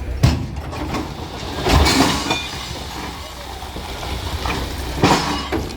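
Railway breakdown crane at work on a derailed goods wagon: a heavy engine hums steadily and low under sharp metal clanks and bangs, the loudest about two seconds in and again just after five seconds.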